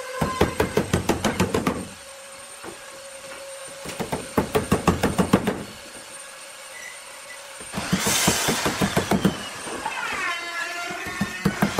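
Claw hammer driving small nails through a thin panel into a pine frame: three quick runs of light, rapid taps, each lasting about a second and a half.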